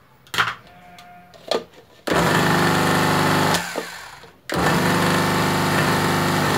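Moulinex 123 electric grinder's motor running in two bursts of about a second and a half and two seconds, with a short stop between, after a couple of handling knocks. The grinder works again now that a break in its power cable has been repaired.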